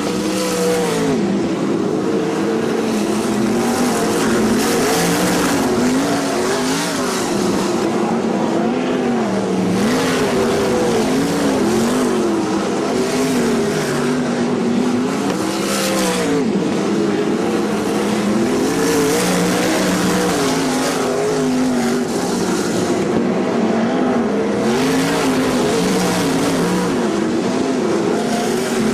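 A pack of winged sprintcars racing on a dirt oval, several V8 engines revving up and easing off as they go through the turns, their pitches rising and falling over one another.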